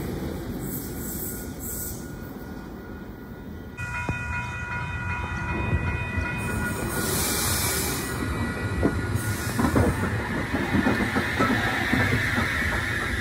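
A train passing close by. Its noise fades over the first few seconds, then about four seconds in it steps up, with several steady high tones. Through the second half, wheels click repeatedly over the rail joints.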